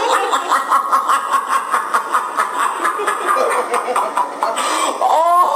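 A group of men laughing hard in quick, rhythmic pulses of about four a second, with a rising high-pitched whoop near the end.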